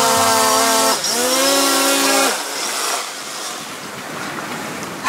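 Quadcopter drone (DJI Phantom type) motors and propellers whining steadily, then dropping in pitch about a second in and stopping a little after two seconds as it is held overhead and spun down. Only a rushing wind noise remains afterwards.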